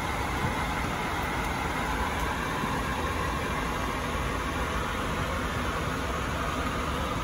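Steady cabin noise inside a Bombardier Dash 8 Q400 airliner on the ground: an even rushing hum with no distinct events.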